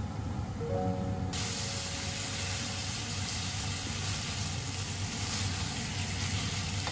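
Spaghetti and mushrooms sizzling in a hot frying pan as they are tossed with tongs. The sizzle comes in suddenly about a second in and then holds steady, over soft background music.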